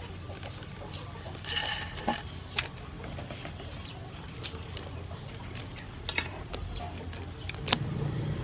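Metal spatula and slotted turner clinking now and then against a pan while bundles of yellow noodles are turned and lifted in boiling water, over a steady low hum.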